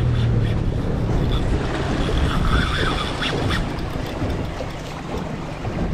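Wind buffeting the microphone, with water rushing past the hull of a moving boat at sea.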